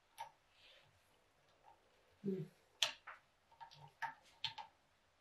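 Screwdriver turning a small screw into a carburetor to fasten the dash pot: a handful of faint, scattered metallic clicks and ticks, with a softer knock a little after two seconds in.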